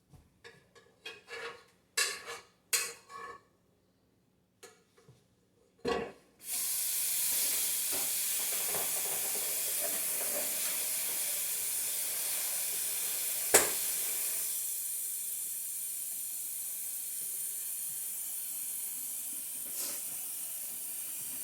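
A few light clinks and knocks of dishes and cutlery, then a steady hiss that starts abruptly about six seconds in and carries on, with one sharp click partway through.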